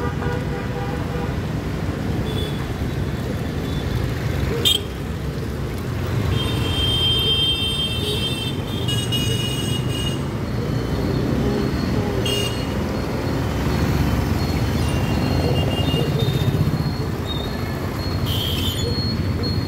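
Road traffic crossing at a level crossing: motorcycle, scooter and auto-rickshaw engines running with a steady rumble, and short horn toots several times, mostly between about 6 and 10 seconds in and again near the end. A single sharp knock sounds about five seconds in.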